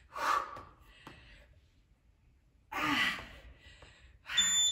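A woman breathing hard through push-ups: three heavy breaths, spaced a couple of seconds apart. Near the end an electronic interval timer starts its high countdown beeps as the interval runs out.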